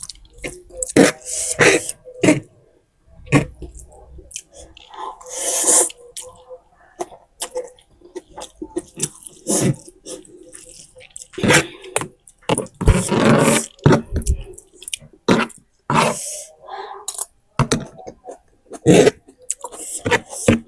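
Close-miked eating of spicy instant noodles: chewing and mouth noises made up of many short sharp clicks, with a few longer noisy bursts of about a second near the start of the middle and again about two-thirds of the way through.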